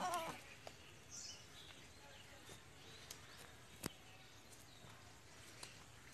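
A goat's wavering bleat ending right at the start. After it comes quiet background with a faint high chirp about a second in and a few sharp clicks, the clearest about four seconds in.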